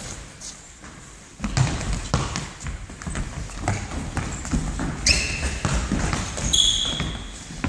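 Indoor five-a-side football on a wooden sports-hall floor: thuds of the ball being kicked and bouncing, running footsteps and two sharp squeaks of trainers, echoing in the hall. The play gets busier about a second and a half in.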